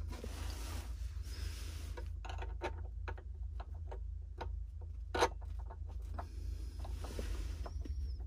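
Scattered small clicks and taps of a metal propeller and its nut being handled and fitted onto a baitboat's motor shaft, with one sharper click about five seconds in, over a steady low rumble.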